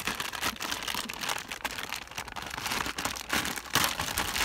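Clear plastic packaging bag crinkling in quick, irregular crackles as hands handle it and work it open.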